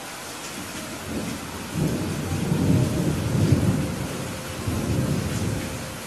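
Thunder rumbling over steady rain: a low roll that builds from about a second in, swells twice and dies away near the end, with the rain's even hiss underneath.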